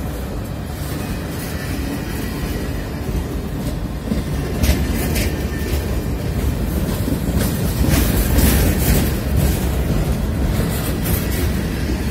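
Freight train of covered grain hopper cars rolling past at slow speed: a steady rumble of steel wheels on rail. From about four seconds in, sharp clicks and clanks come through, and it is loudest a little past the middle.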